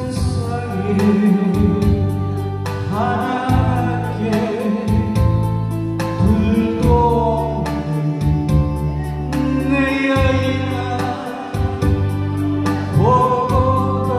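A man singing a slow song into a handheld microphone, holding long wavering notes over instrumental accompaniment with a steady beat and bass.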